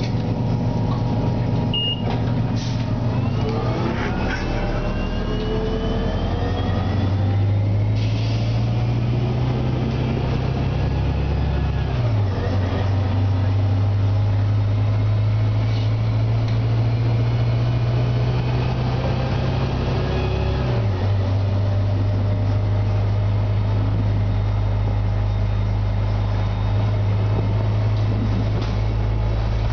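Detroit Diesel Series 50G four-cylinder natural-gas engine of a 2003 Orion VII bus, heard from inside the cabin, pulling the bus away and accelerating, with a rising whine. The engine pitch climbs and then drops abruptly about twelve seconds in and again about twenty-one seconds in, as the Voith DIWA automatic transmission shifts up.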